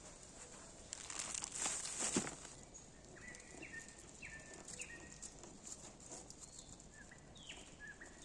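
A bird calling in a series of short chirps, each sliding down in pitch, over a steady high-pitched chirring of insects. Rustling handling noises come just before the chirps, about a second to two seconds in.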